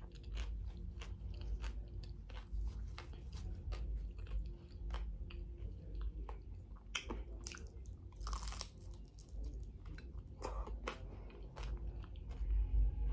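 Close-up chewing of a crunchy fried corn-tortilla tostada: a steady run of crisp crunches, with a few louder crunches in the second half.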